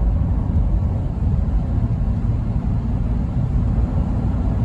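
Car driving along a highway: a steady low rumble of road and engine noise.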